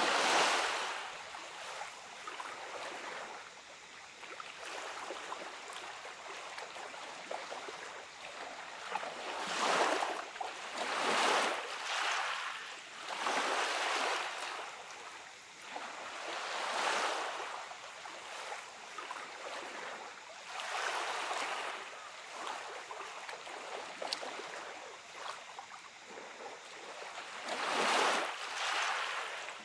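Small waves washing onto a gravelly beach, one wash every few seconds, each swelling and fading away. Several come close together around the middle, and the loudest are at the very start and near the end.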